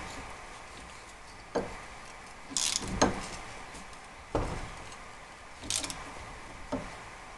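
Ratchet wrench with a 13 mm socket being worked on a bolt: separate metallic clicks and knocks about every second and a half, with two short ratcheting rasps in between.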